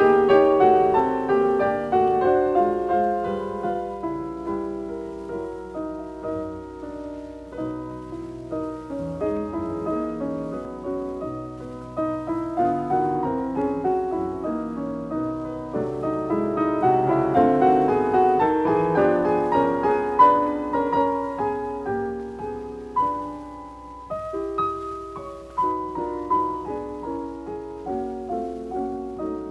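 Background piano music: a slow, gentle run of struck notes and chords, each ringing and fading.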